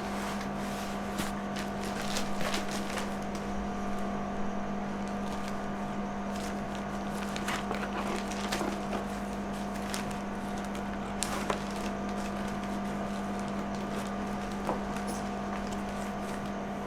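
A cardboard shipping box being opened and handled: scattered scrapes, taps and crinkles of packaging over a steady hum.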